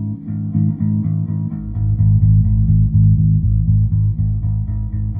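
Electric bass guitar played through an Ashdown Dual Bass Compressor pedal: a steady run of plucked notes on the A string, about four or five a second.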